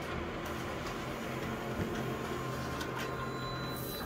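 Photocopier running through a copy, a steady mechanical hum with a few light clicks, as the sheet feeds out into the output tray near the end.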